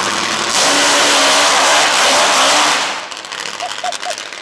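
Drift car passing at full throttle with a loud engine note. The sound surges about half a second in and falls away sharply just before three seconds as the car moves off.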